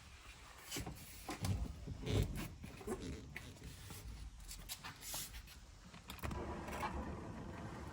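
Scattered light knocks, clicks and rustling from hands working under a car seat, fitting an LED light strip, with a steadier rustle from about six seconds in.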